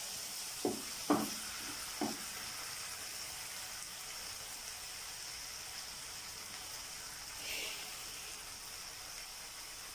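Onion and capsicum frying gently in oil in a kadai over a lowered flame, a steady soft sizzle, with three short knocks in the first two seconds.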